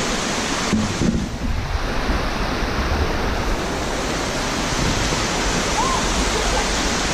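Steady rushing noise of a waterfall pouring into a swimming pool. About a second in, the upper part of the sound dulls for a couple of seconds before returning.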